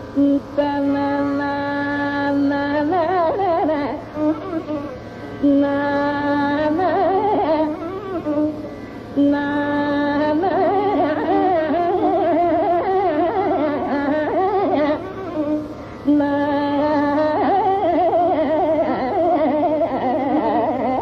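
Carnatic raga alapana in Todi (Thodi): long held notes that break into quick, wavering ornamented phrases, over a faint steady low drone.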